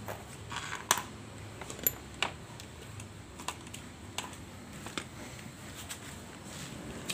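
Scattered light clicks and taps, about ten, spaced unevenly, with the sharpest about a second in, over a faint low hum.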